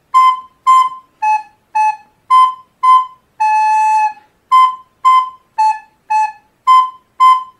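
Soprano recorder playing the phrase C, C, A, A, C, C, A, with the last A held, then starting the same phrase again (C, C, A, A, C, C). The notes are short and separately tongued.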